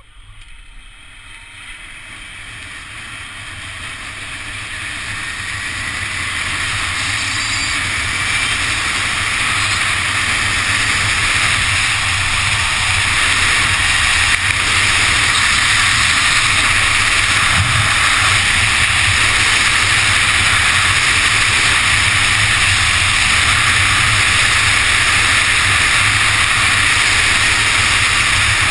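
Wind rushing over the camera microphone during a high-speed zipline descent, growing louder over the first ten seconds or so as the rider picks up speed, then a loud, steady rush with a low buffeting rumble.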